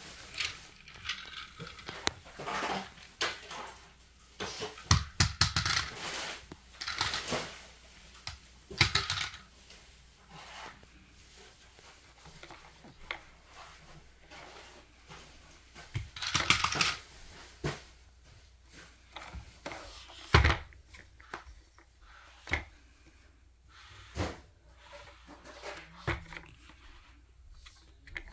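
Irregular knocks, clicks and short rattling clatters of toys being handled and set down, with louder clusters about five to nine seconds in and again around sixteen seconds.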